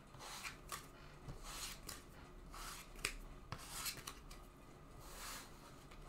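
Paper trading cards being handled and slid over a table: a series of soft swishes of card stock with a few light clicks.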